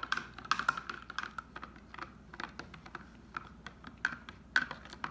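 Borax being stirred into hot water to dissolve it, the stirrer clicking and tapping irregularly against the container.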